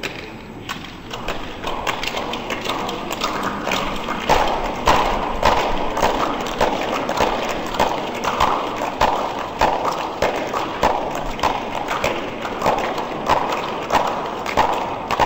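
Steady rhythmic thumps, about one and a half to two a second, over the background noise of a large hall, growing louder a few seconds in and keeping an even beat.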